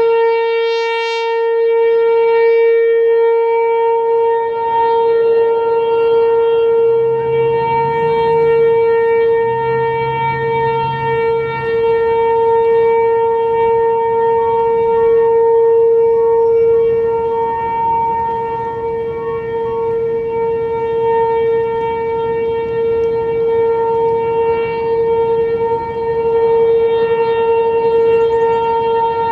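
American Signal Tempest T-128 outdoor warning siren sounding a test: a steady wail held at one pitch, its loudness swelling and easing gently.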